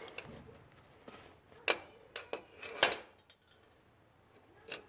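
A few sharp metal clinks and knocks, spaced out, the loudest about three seconds in: a breaker bar and socket being handled on a rusted bed bolt of the truck.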